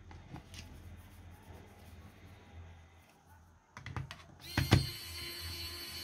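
Small clicks of the plastic sensor case being handled and a screwdriver bit being set into a screw hole. About four and a half seconds in, a small electric screwdriver starts driving a screw into the case and runs with a steady whine.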